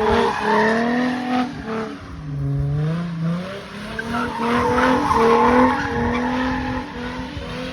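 V8 car engine running under throttle with its tyres squealing in a one-wheel wheelspin, the pitch wavering up and down.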